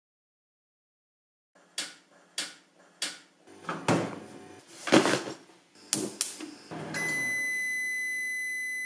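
Silence, then three sharp clicks followed by the knocks and rustles of a refrigerator door being opened and handled, the loudest knock about five seconds in. Near the end a steady high-pitched electronic tone sounds for about two seconds.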